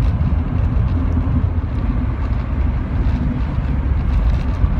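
Rover 45 engine and road noise heard from inside the car while driving, a steady low rumble. The engine is misfiring, which the driver describes as running on three cylinders.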